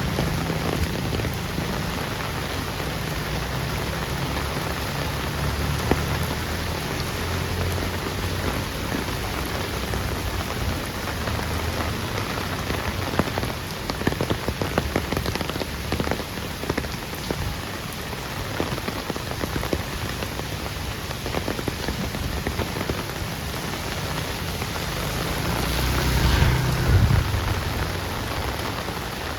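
Heavy rain falling steadily on a street, with many sharp drops splatting close by. A low rumble sits under it at first, and a louder rushing swell comes and goes near the end.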